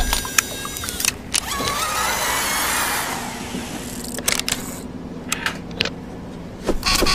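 Mechanical sound effects of an automated press and gripper: a whirring motor with a hissing wash about a second and a half in, then a low steady hum broken by a few sharp clicks.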